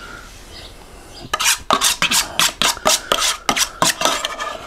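A spoon scraping in quick, rasping strokes, about five a second, starting a little over a second in, as it works seasoned butter.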